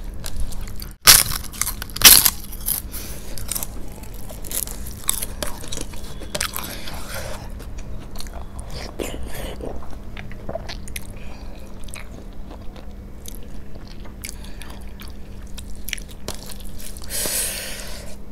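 A person eating crisp papad: two loud crunching bites about one and two seconds in, then steady chewing with many smaller crunches, and another crunchy stretch near the end.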